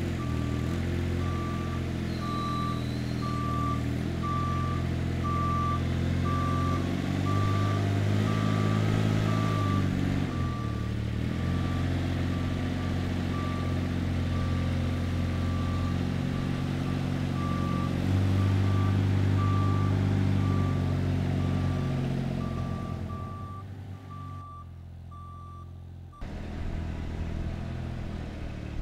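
Moffett truck-mounted forklift's engine running while the machine drives, its pitch rising and falling, with its backup alarm beeping steadily; the beeping stops a few seconds before the end.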